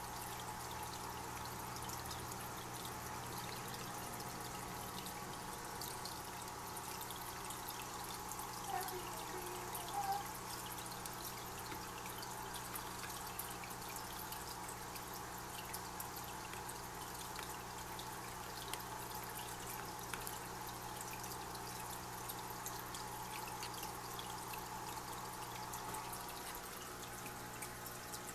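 Aquarium filter returning water to the tank: a steady trickle with a low hum.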